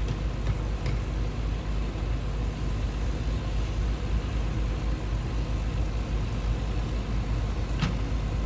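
Heavy diesel engine of earthmoving machinery running steadily, with a couple of faint ticks in the first second and a sharper click near the end.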